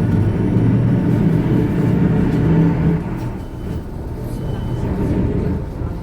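Drive motor and road rumble of a 華德 (RAC) battery-electric low-floor city bus in motion, heard from inside. A steady low hum with a faint higher whine, which drops in level about three seconds in.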